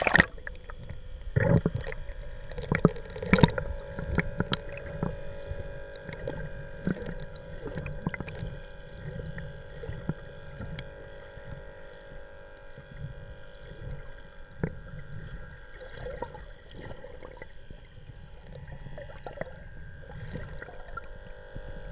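Muffled sound of a camera submerged in a pond. There are knocks and splashy bubbling in the first few seconds as it goes under, then a steady underwater hum with a faint held whine and scattered clicks.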